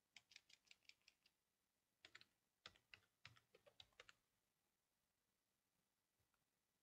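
Faint typing on a computer keyboard: two quick runs of keystrokes, the first about a second long and the second about two seconds long with a few harder key presses.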